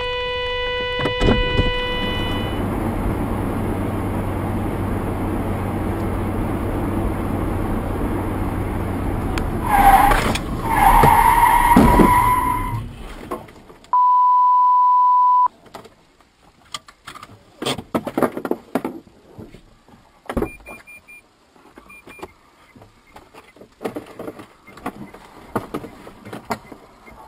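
Car noise from a dashcam after a collision: steady engine and road noise, with a loud pitched sound about ten seconds in. A steady electronic beep follows for about a second and a half. Then faint scattered knocks and clicks.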